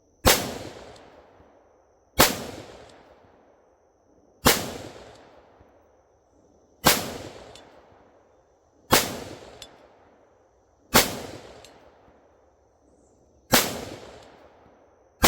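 Eight single shots from a PSA Sabre 15 AR-15 rifle in 5.56 with a 13.7-inch barrel, fired at a slow, even pace about two seconds apart. Each is a sharp crack trailing off in an echo.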